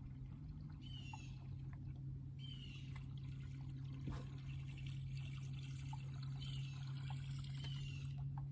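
Water trickling and lapping over a steady low hum, with a bird calling four times in short falling chirps.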